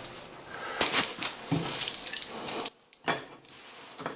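Paper towel rubbing and dabbing a raw steak on a ceramic plate to dry its surface: uneven papery rustling and scuffs, broken by a brief drop to silence a little under three seconds in.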